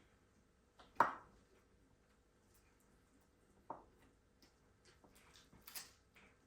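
A few sharp clicks of tableware at a meal, the loudest about a second in, others near four and six seconds in, with faint small ticks between.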